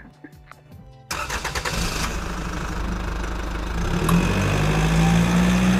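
Car engine starting and running, its revs climbing about three seconds after it comes in. The sound begins abruptly about a second in and cuts off just as abruptly.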